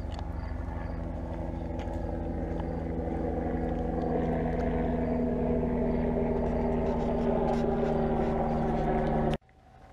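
An engine running at a steady pitch, growing louder over several seconds, then cutting off abruptly near the end.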